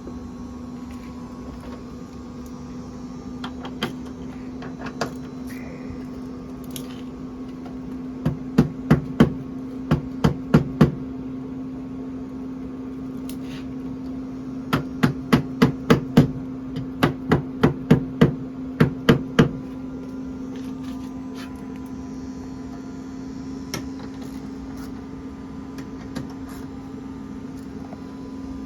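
Two runs of sharp taps or clicks from tools working on a Tesla's door-latch striker: about eight, then a pause, then about fourteen more. They play over a steady low hum. The striker is being adjusted because it sat too low and pulled the door down, so the door had to be slammed shut.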